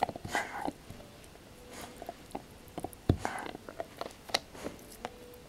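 Basset hound gnawing a hard white chew bone: irregular clicks and crunches of teeth on the bone.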